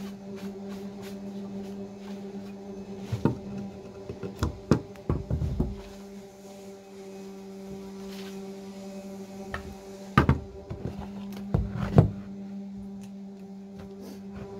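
Wooden boards knocking together and against the bench as they are handled and set down: a run of sharp knocks about three to six seconds in and a few more around ten to twelve seconds in, over a steady low hum.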